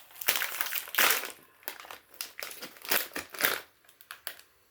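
Plastic snack bag of Beer Nuts habanero bar mix crinkling in irregular bursts as it is handled and opened.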